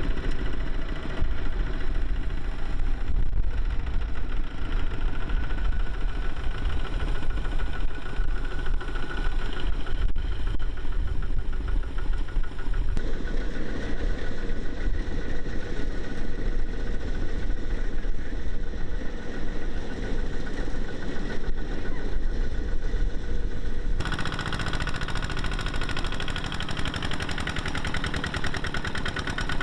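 Single-cylinder diesel engines of Kubota two-wheel walking tractors running with a steady, rapid chugging as they haul rice-laden trailers through deep paddy mud. The engine sound shifts abruptly twice.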